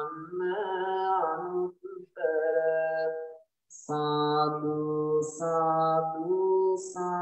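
A Buddhist monk chanting Pali devotional verses in a slow, sung style, holding long notes in phrases with a brief pause a few seconds in. The voice comes through a video-call link.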